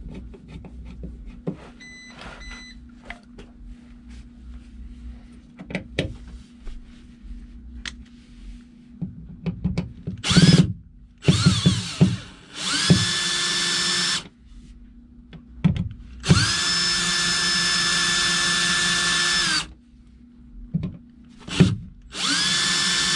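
About ten seconds of light clicks and knocks as the receptacle is handled, then a cordless drill/driver driving the receptacle's mounting screws in several short runs. Each run's motor whine rises quickly to a steady pitch, and the longest run lasts about three seconds.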